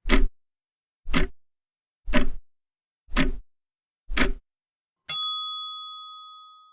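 Countdown timer sound effect: five clock ticks, one a second, then a single bell ding that rings out and fades over about a second and a half, signalling that the time to answer is up.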